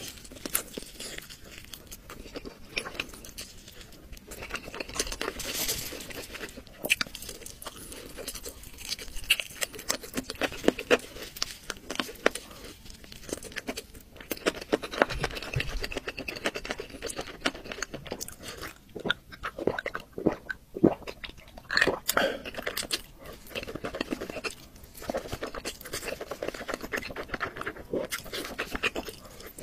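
Close-up eating sounds: a person chewing and biting food, with many short, crisp crunches following one another.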